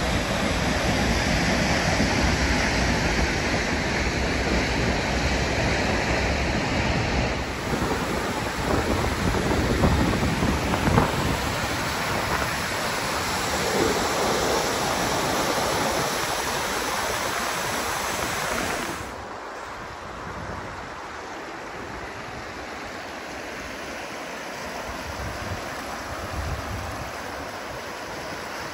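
Rushing water throughout: the steady noise of Vernal Fall plunging into spray, changing about a quarter of the way in to whitewater rapids on the Merced River, then, about two-thirds in, to a quieter, softer river flow over shallow riffles.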